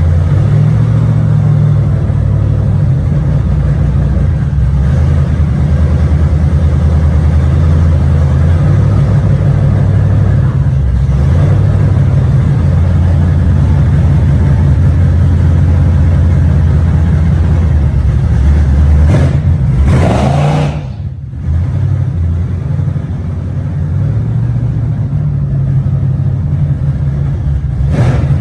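LS V8 with a TSP F-35 camshaft in a 1996 Impala SS, running loud with a choppy low rumble. About twenty seconds in it surges up in pitch and then drops off sharply for a moment before settling back.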